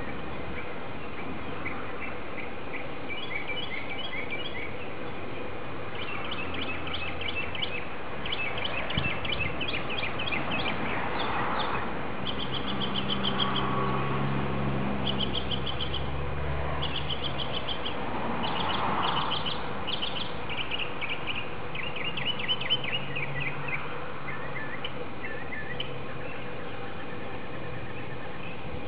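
Birds chirping in quick runs of high notes, over and over, with a low hum that swells and fades in the middle.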